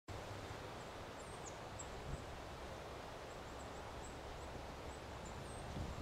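Quiet outdoor ambience: a steady low hiss and rumble, with faint, brief, high bird chirps scattered throughout.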